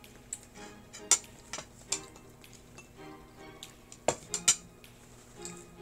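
Plates and cutlery clinking and knocking as they are moved about on a table: a handful of sharp separate clicks, the loudest about a second in and twice just after four seconds.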